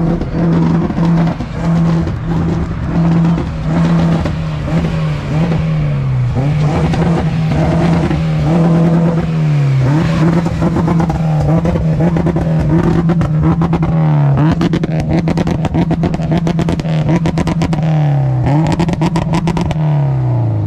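Car engine being revved hard: quick on-off blips at first, then held at high revs for several seconds at a time, dropping back briefly about every four seconds before climbing again.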